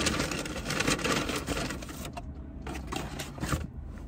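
Rummaging noises from reaching into a car's back seat: a dense run of rustles, rubs and small knocks.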